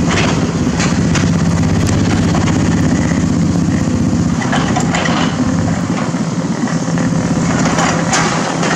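Sumitomo SH210 hydraulic excavator's diesel engine running steadily while it digs and levels soil, with scattered short knocks from the work.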